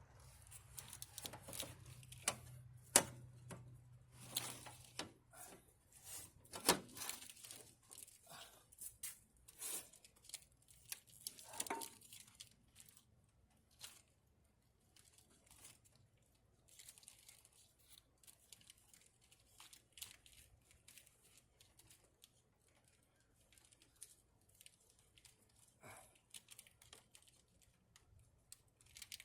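Hands working on parts under a truck's hood: scattered clicks, knocks and crinkling of plastic and wiring, busiest in the first half, with two sharper knocks about 3 and 7 seconds in, then only occasional faint clicks.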